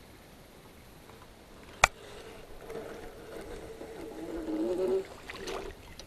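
A sharp click, then the whir of a spinning fishing reel being cranked for about four seconds. Its pitch wavers with the cranking speed and it gets louder near the end.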